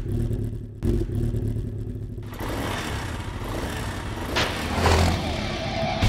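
Motorcycle engine sound effect. It cuts in abruptly with a low, uneven idle rumble, catches again about a second in, then revs up and turns louder and noisier from about two seconds in.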